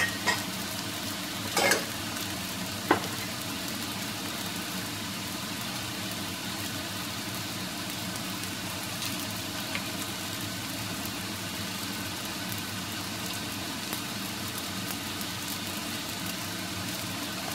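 Egg fried rice with bell peppers sizzling steadily in a wok. A few sharp knocks come in the first three seconds.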